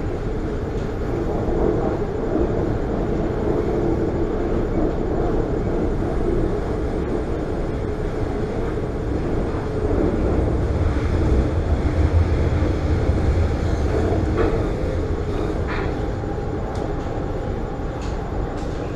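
Elevated metro train running, heard from inside the carriage: a steady rumble and hum of the wheels and motors on the rails, growing louder about ten seconds in and easing off again a few seconds later.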